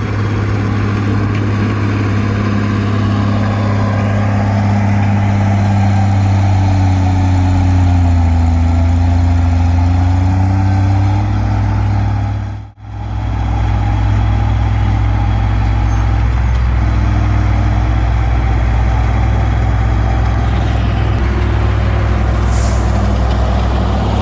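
Komatsu D20P bulldozer's diesel engine running steadily under load, its pitch sagging and recovering a little before the middle. The sound cuts out for an instant about halfway.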